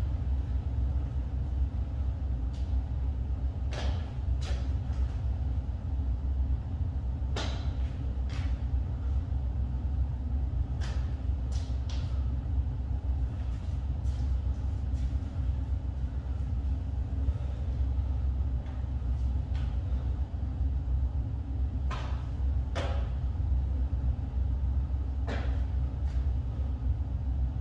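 Steady low rumble throughout, with scattered soft knocks of bare hands and feet landing on a yoga mat over a hard floor as a person moves along on all fours. The knocks come in clusters, with a quiet stretch in the middle.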